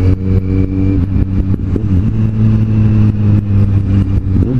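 Kawasaki Z750's inline-four engine running under way, its pitch dropping about two seconds in and dipping briefly again near the end, with wind buffeting the microphone.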